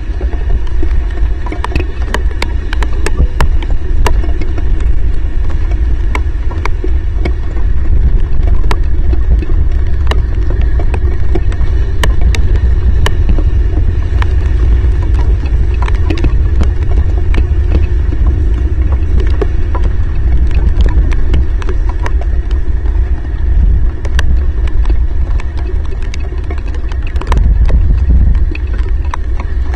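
Heavy rain on an outdoor camera's microphone: a loud, steady low rumble of wind buffeting the mic, with many scattered sharp ticks of raindrops striking the housing.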